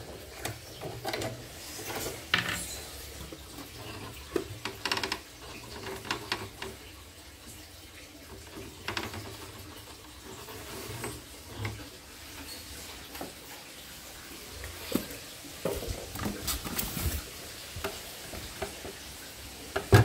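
Irregular small clicks, taps and light clatters of hard plastic and metal parts being handled: a bobbin case is taken out of a portable embroidery machine's hook area and set down on a wooden table.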